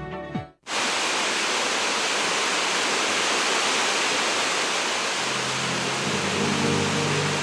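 A steady, even rushing hiss, like heavy rain or falling water, starting just after a brief cut in the sound; low music comes in under it about five seconds in.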